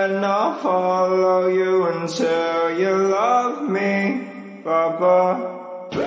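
Chant-like music: a held, sung vocal line stepping and gliding between notes over a steady low drone. It cuts off abruptly near the end.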